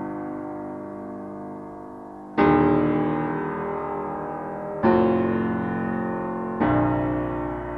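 Background music of slow, sustained piano chords. A new chord is struck three times, about two seconds apart, and each one rings and fades.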